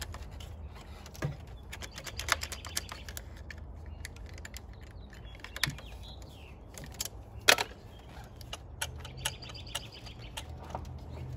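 Scattered sharp clicks and taps of hand tools and metal parts being handled, the loudest about two thirds of the way through, over a steady low hum.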